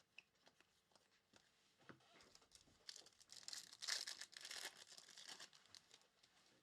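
Trading cards being handled: faint clicks, then a soft papery rustle of cards sliding against each other near the middle.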